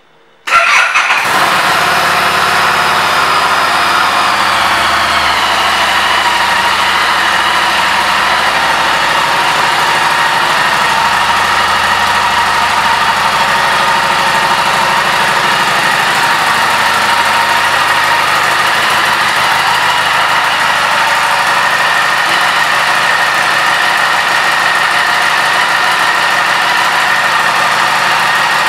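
2015 Harley-Davidson Street 500's liquid-cooled V-twin starting about half a second in, catching with a brief rough burst, then idling steadily. The idle settles slightly lower in pitch over the first few seconds.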